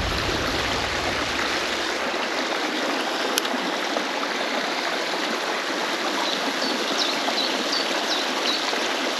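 Small brook rushing and splashing over stones in a shallow riffle, a steady even water noise. A single click comes a little over three seconds in, and a few short high chirps come in the second half.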